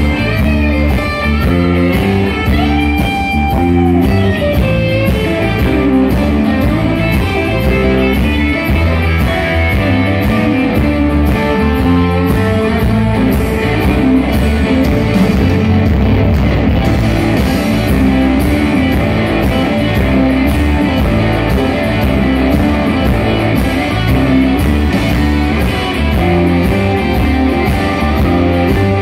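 Live blues-rock band playing an instrumental passage: electric guitars over bass and drums. A held lead-guitar note bends in pitch about three seconds in.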